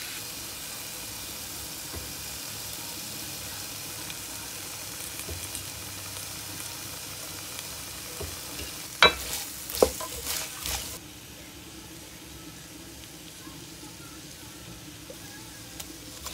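Julienned jicama sizzling as it stir-fries in oil in a wok, with a few sharp clinks about nine and ten seconds in. The sizzle stops about eleven seconds in, leaving a quieter background hiss.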